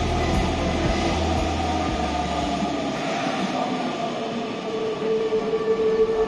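Hanshin commuter train standing at the platform with its doors open, its onboard equipment running with a low hum that cuts off about three seconds in. A steady tone comes in near the end.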